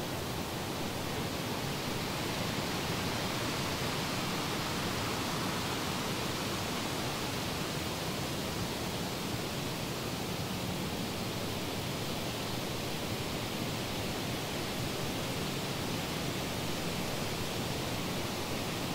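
A steady, even rushing noise with no tones or separate sounds in it.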